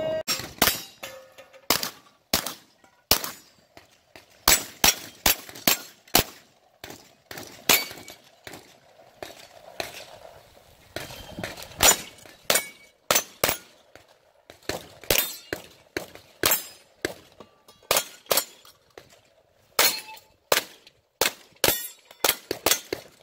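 Strings of rapid gunshots, several a second with short pauses between strings, fired at steel plate targets that clang and ring when hit.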